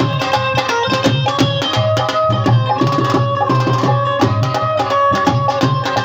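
Live Punjabi folk music with fast, dense hand-drum strokes under held melody notes.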